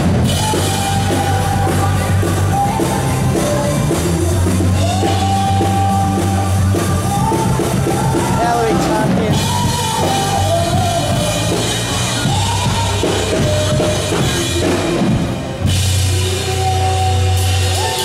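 Live rock band playing, with a drum kit and a woman singing.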